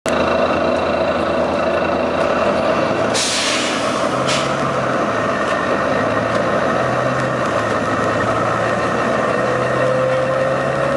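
Volvo B9TL bus's diesel engine running steadily, with a sharp burst of hissing about three seconds in and a shorter one a second later: a random hissing from the engine that the uploader suspects is a dodgy turbo.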